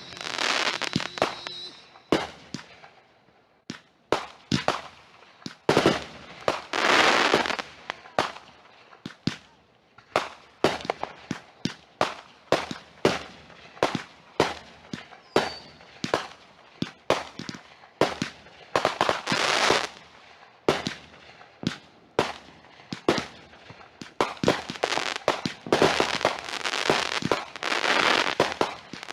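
Consumer fireworks going off in a rapid string of sharp bangs, often less than a second apart. Several stretches of crackling hiss come between the bangs, the longest near the end.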